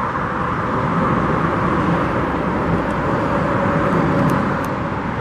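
Steady road traffic noise: the even rush of passing vehicles.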